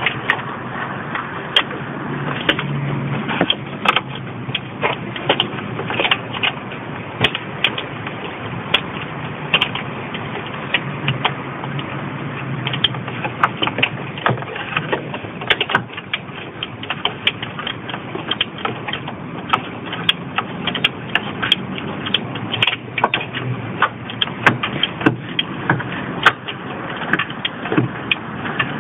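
Wrench clicking and clinking on metal in irregular sharp knocks as the bolts of a car's accessory-belt tensioner are tightened, over a steady low background hum.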